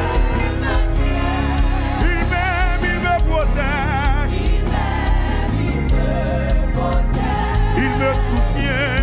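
Live gospel worship music: several women singing together with wide vibrato over a drum kit and an electronic keyboard.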